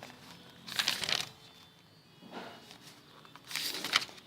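Notebook pages being turned: a paper rustle about a second in and another near the end, with a fainter one between.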